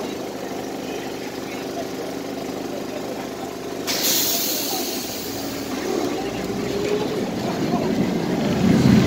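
Vintage Lisbon tram on the 28 line standing at a signal with a steady hum, then a sharp hiss of released air about four seconds in as the brakes let go. The tram then pulls away, its rumble growing louder toward the end.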